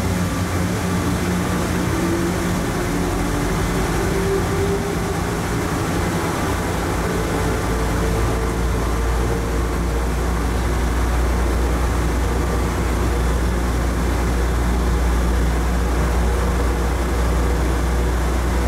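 Plane Train automated people mover running through a tunnel as it pulls away from a station. A motor whine rises in pitch over the first half, while a low running rumble builds and then holds steady.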